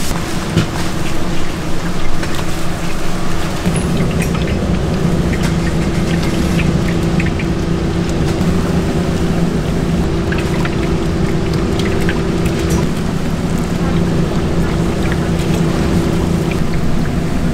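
Hot frying oil in a large deep-fryer vat crackling and sizzling as battered chicken pieces are dropped in by hand, one after another. A steady low hum runs underneath and breaks off briefly past the middle.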